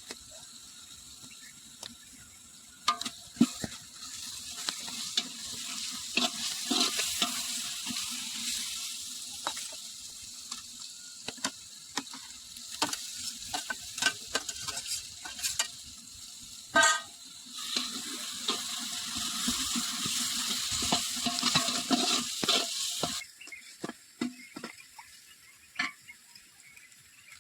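Food frying and sizzling in a pan while it is stirred, with a utensil scraping and clicking against the pan. The sizzle cuts off suddenly about three-quarters of the way through, leaving only a few scattered clicks.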